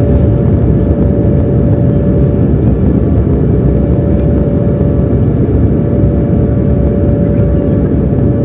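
Airbus A320 engines and airflow heard from inside the cabin: a loud, steady rush with a steady whine through it.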